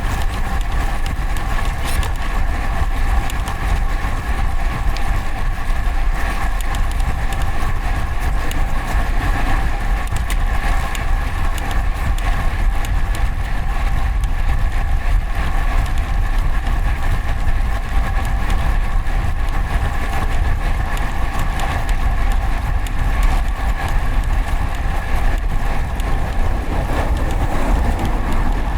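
Wind rumble and road noise picked up by a microphone mounted on a moving road bike, with steady traffic noise and a steady whine of several tones.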